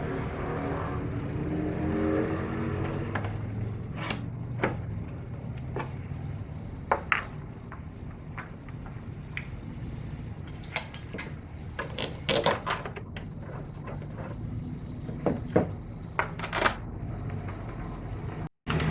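Irregular clicks, knocks and clatter of tools and plastic engine parts being handled during reassembly after a spark plug change on a 2.5L Ecotec engine, over a steady low hum; the sharpest knocks come in a cluster past the middle.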